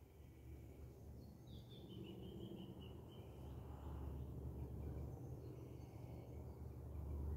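Faint bird calls outdoors, with a chirping call about a second and a half in, over a low rumble that slowly grows louder.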